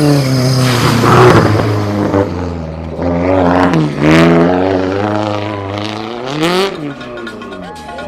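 Rally car engine revving hard, its pitch dropping and climbing several times, with a quick climb about six and a half seconds in that breaks off sharply.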